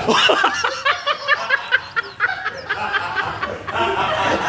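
Hearty laughter in quick repeated bursts, about four a second, as the reaction to a train-horn prank.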